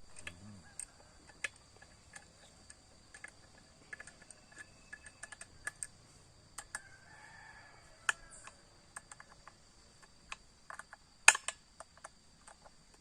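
Irregular small clicks and taps of tools and metal parts being handled as a Stihl 070 chainsaw is taken apart, with one sharper click about eleven seconds in. A steady high insect drone runs underneath.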